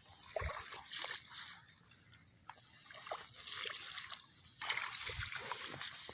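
Shallow rice-paddy water splashing and sloshing in irregular bursts, louder for a stretch about four and a half seconds in.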